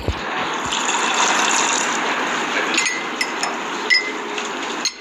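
A steady rushing noise, with a few light clinks of a metal spoon against a ceramic coffee cup in the second half.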